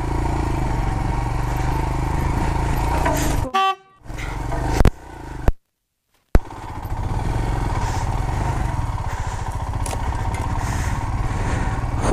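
Royal Enfield Himalayan's 411 cc single-cylinder engine running at low speed as the bike is ridden over rough grass, with wind on the microphone. About three and a half seconds in the engine sound breaks off, followed by a brief pitched tone and a couple of sharp knocks. After a short gap of silence the engine is heard running again.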